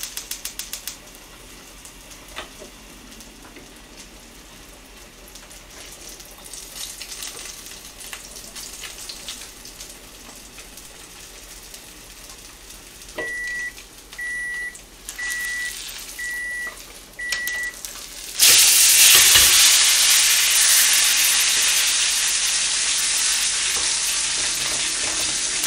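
Mackerel frying in an oiled pan with a quiet hiss. Five evenly spaced electronic beeps come from the gas range, its overheat warning. Then a sudden loud sizzle breaks out and slowly dies down.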